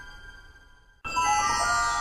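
Title music: a chord of ringing tones dies away, and a new one starts sharply about halfway through and slowly fades.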